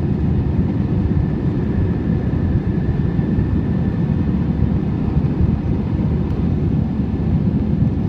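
Steady cabin noise of an Airbus A319 climbing after takeoff: engine and airflow rumble, heaviest in the low range, with a faint high whine over it.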